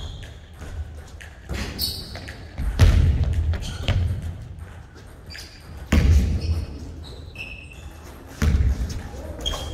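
A basketball thumping three times, a few seconds apart, each thump echoing in the large gym, with short sneaker squeaks on the hardwood court in between.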